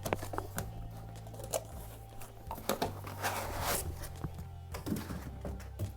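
Background music with a steady low bass line. Over it come scattered taps and knocks and a brief rustle about three seconds in, from a cardboard box and its contents being handled.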